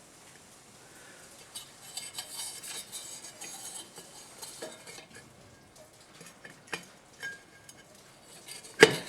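Steel automatic-transmission parts, the 4L60E's sun gear and low roller clutch pieces, clinking and rattling lightly as they are handled, with one sharp metal clank near the end.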